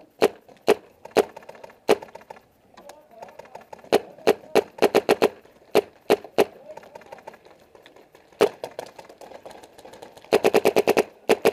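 Paintball markers firing: scattered single shots, a quick string of about half a dozen around five seconds in, and a rapid burst of about ten shots near the end.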